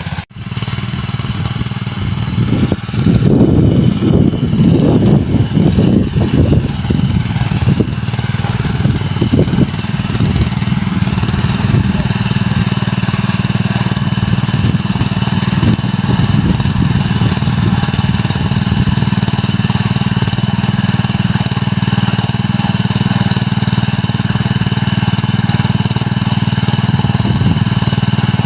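Small engine of a Quick Cakar Baja mini cultivator running, louder and uneven for several seconds near the start, then running steadily.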